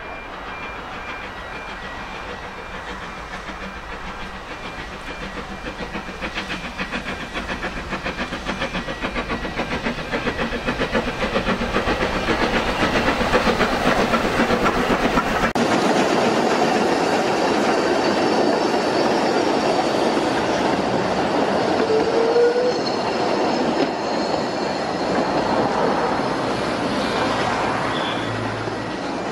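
Beyer-Peacock 2-4-0T steam tank locomotive hauling a train of carriages: a fast, even beat of exhaust chuffs that grows louder as it approaches and passes close by, with the carriages clattering over the rail joints.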